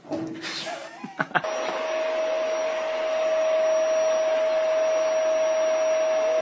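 A household electric appliance motor starts about a second and a half in, after a couple of sharp clicks. It runs with a steady loud whine over a rushing noise, then cuts off suddenly.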